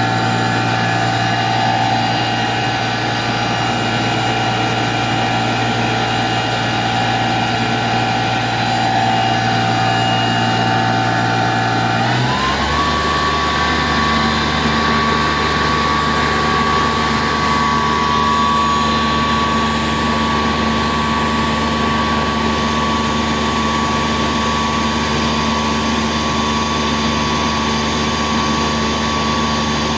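Hyundai HIT 8 S CNC lathe running with a steady machine whine and hum. Partway through, the pitch steps up within half a second as the machine changes speed, then holds steady at the new pitch.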